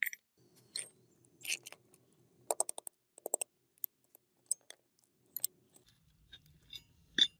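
Rusty steel gun parts clinking and knocking against each other and on a concrete floor, with quick runs of light hammer taps on a metal plate about two and a half and three and a half seconds in. The loudest single knock comes near the end.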